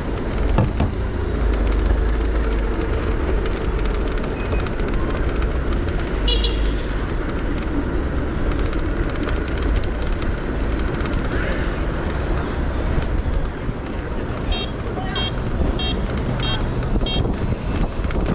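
City traffic and road rumble from a car driving slowly through busy streets, with a short high-pitched horn beep about six seconds in and a run of about five quick horn beeps near the end.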